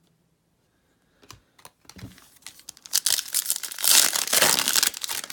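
Trading-card pack wrapper being handled and torn open: a few light taps and rustles, then dense crinkling over the last two seconds.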